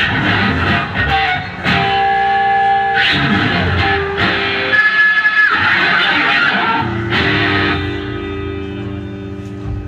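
Loud electric guitar played in free noise-rock style: abrupt, dissonant strummed chords alternating with held ringing notes, starting suddenly at the opening.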